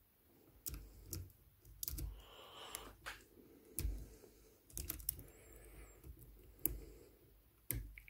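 Small metal clicks and scratches from lock-picking tools in the keyway of an ERA snap window wafer lock: a thin jiggler key is rocked among the wafers while a serrated tension wrench holds light tension. The clicks come sharp and irregular, about one or two a second.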